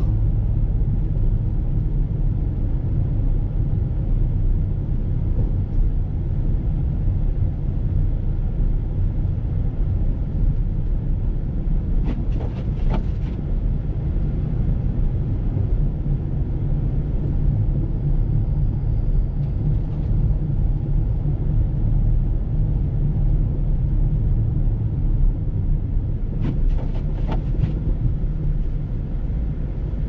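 Steady low rumble of a car driving, heard from inside the cabin. Two short clusters of clicks, about fourteen seconds apart, break through the rumble.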